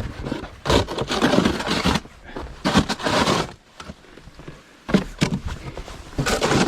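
Snow shovel scraping and pushing snow in irregular strokes, each about a quarter to a little over a second long, with short pauses between them.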